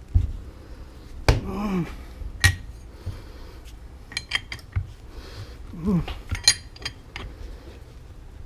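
Metal tools and air impact wrench parts clinking and knocking during hand work, a string of sharp clicks, some with a short metallic ring.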